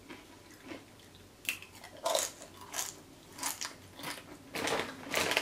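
A queso-dipped tortilla chip bitten and chewed close to the microphone: a run of crisp crunches, irregular and coming more often in the second half.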